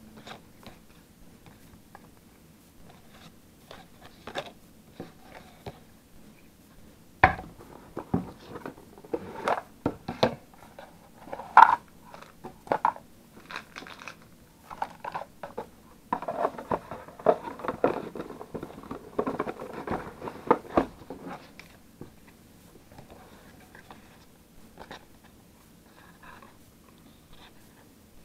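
Trading cards being handled, shuffled and set down on a table: irregular light taps, clicks and rustles, busiest for a few seconds past the middle and sparse toward the end.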